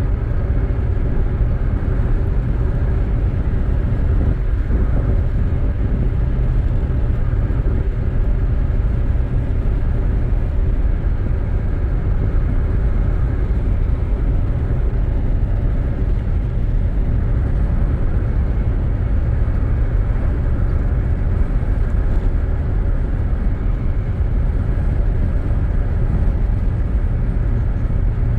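Steady low rumble of a moving vehicle, with no breaks or changes.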